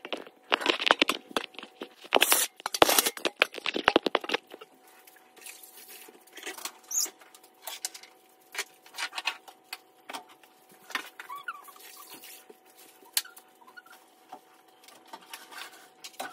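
Metal step ladder rattling and knocking as it is handled close by for the first four seconds or so. After that come quieter, scattered clicks and taps as things are moved about on the kitchen counter.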